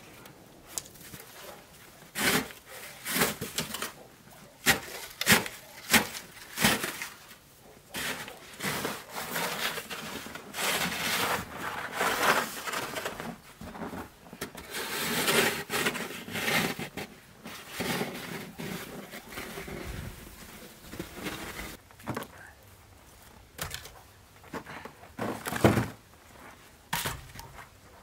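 Snow shovel scraping and scooping snow in irregular strokes, with sharp scrapes and knocks.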